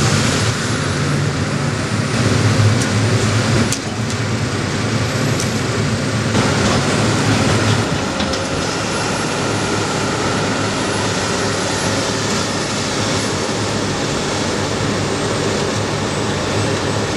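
Heavy diesel engines running steadily as a log loader works loading logs onto a logging truck.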